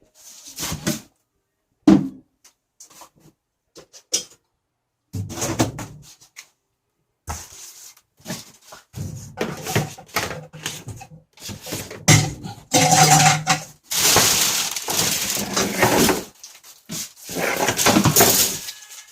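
Parts of a top-loading washing machine being handled while it is taken apart: irregular knocks, clatter and scraping, denser and louder in the second half.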